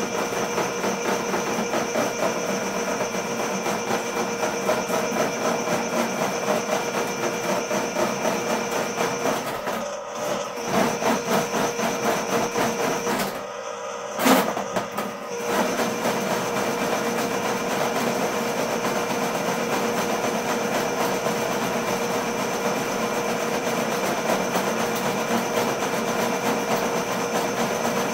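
Ridgid K50 sectional drain machine running, its electric motor spinning the cable in the drain line with a steady whine and rattle. It briefly drops off around ten seconds in, and again near fourteen seconds with a sharp knock, then runs steadily again.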